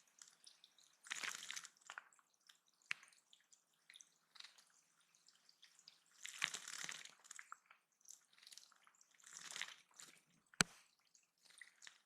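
Water in a shallow bird pond splashing in three short bouts of about a second each, with small drips and ticks between them and one sharp tap near the end.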